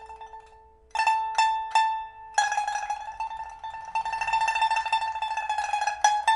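Pipa (1994 Shanghai-factory, Burma padauk body) being played solo, freshly fitted with a new fire-roasted soundboard and new frets: a note dies away, three single plucked notes follow, then a long rapid tremolo on one held note, and near the end single plucked notes again.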